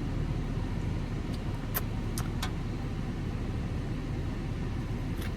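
Steady low rumble of a car heard from inside the cabin, with a few light clicks about two seconds in.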